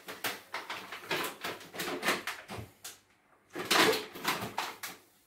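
Rummaging through kitchen things: a quick run of knocks, clatters and rustles as items are moved about and handled, with a short pause about three seconds in.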